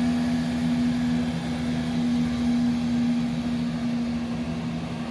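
Class 168 diesel multiple unit pulling out, its diesel engines giving a steady low drone that eases slightly in the second half.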